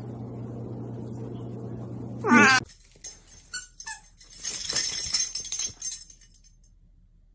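A cat gives one short, loud meow about two seconds in. Then come rustling, a few clicks and some faint short squeaks from a dog handling a plush toy, dying away near the end.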